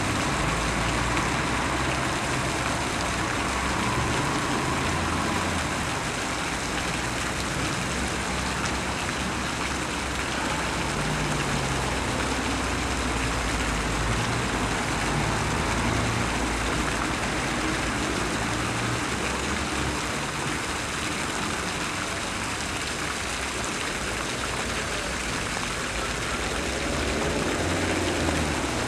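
Fountain jets splashing into their basin in a steady hiss, with a low rumble coming and going underneath.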